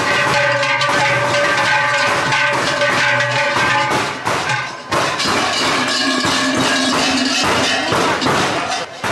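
Large bells worn by straw-costumed Perchten clanging and ringing as the figures jump and shake, a dense clatter of strokes over sustained ringing tones. The pitch of the ringing changes about four to five seconds in.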